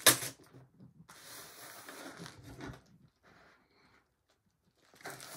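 A sharp knock on the table, then a plastic poly mailer bag crinkling for a couple of seconds as it is picked up and handled. Near the end there is a short tearing rasp as a knife is set to the bag's top edge to slit it open.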